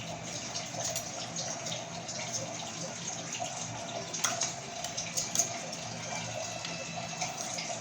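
A spoon stirring and scraping a dry mixture of crushed spices and jaggery in a small bowl, heard as faint irregular clicks and scrapes. Under it is a steady hiss like running water.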